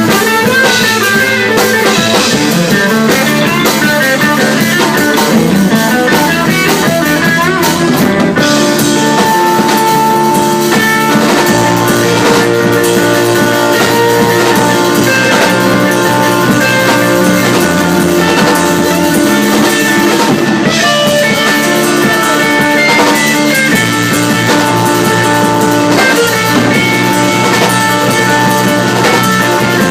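Rock music with guitar and drum kit playing steadily.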